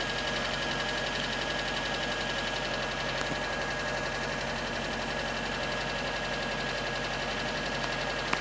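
An engine idling steadily: a constant drone with a thin high whine held over it, and a faint click about three seconds in.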